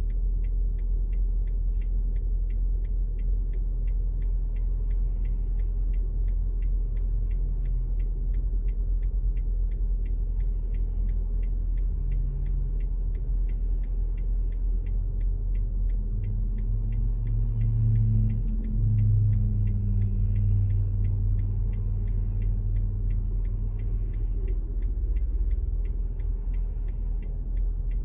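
Idling car heard from inside the cabin, a steady low rumble with the regular ticking of the turn indicator. A deeper engine hum from nearby traffic swells for several seconds past the middle.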